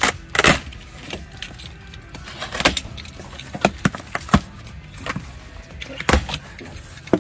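Boxes and their contents being rummaged through: irregular knocks, clatters and rattles of items being handled and moved, with the loudest knocks about half a second in, near the middle and about six seconds in.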